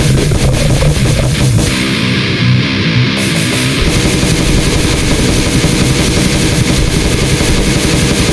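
Loud pornogrind music: a dense wall of heavily distorted guitar and drums. About two seconds in the low end drops out briefly, and the full band comes back in a couple of seconds later.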